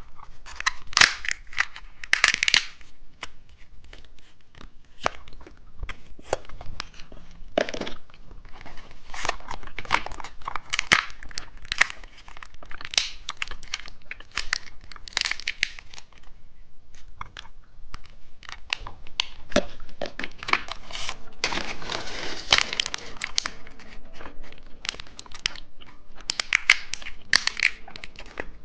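Plastic candy wrappers being torn open and crinkled by hand, in irregular runs of short rustles and crackles.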